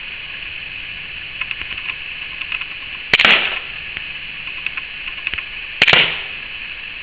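Walther PPK/S CO2 blowback BB pistol firing twice, about three seconds apart, each shot a sharp pop with a short trail.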